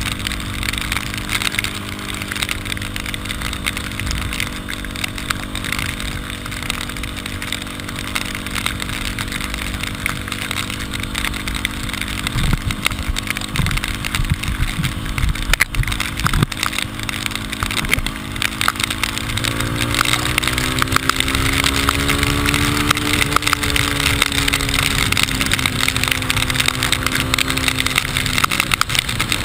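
Single-cylinder engine of a Yamaha Ténéré 250 motorcycle running steadily under a rushing noise over the microphone. About twenty seconds in, the engine note rises as it speeds up, then eases back a little.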